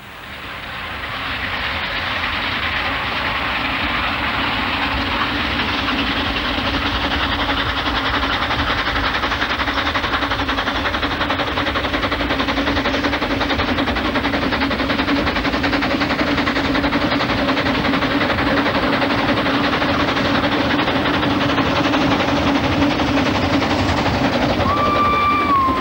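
Narrow-gauge steam locomotive running under steam: a steady rush of exhaust and running noise that fades up over the first two seconds. About a second before the end a steady whistle sounds.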